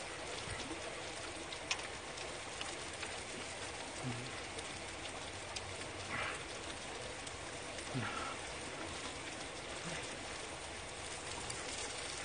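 Steady rain falling, an even hiss with a few faint clicks and knocks on top.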